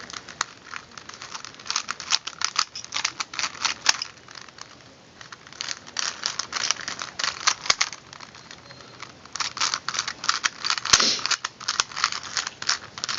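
Plastic layers of a 3x3 Rubik's cube clicking and rattling as it is turned quickly, in three runs of rapid turns with short pauses between, and one louder knock about eleven seconds in.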